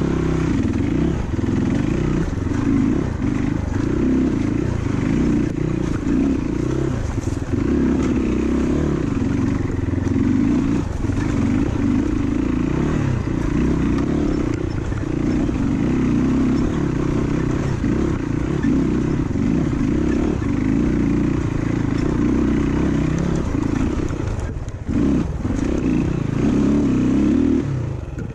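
Dirt bike engine running under changing throttle on an off-road ride, loud and continuous, with a brief dip in level near the end.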